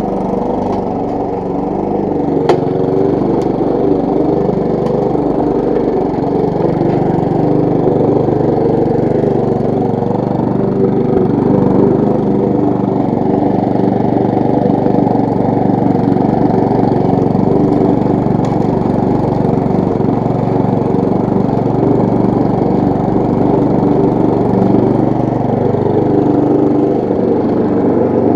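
Briggs & Stratton single-cylinder petrol engine of a walk-behind rotary lawn mower running steadily.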